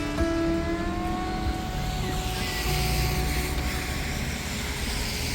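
City bus driving, its motor whine rising slightly in pitch over the first second or so and then fading under steady road rumble.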